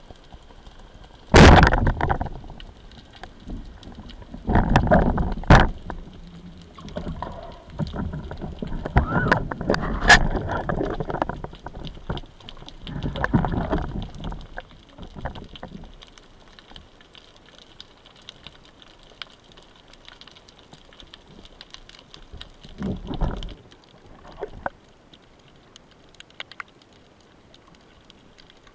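Water rushing and gurgling around an underwater camera housing as a spearfisher swims near the surface. It comes in several loud bursts of about a second in the first half and one more about three-quarters of the way through, with a faint hiss between.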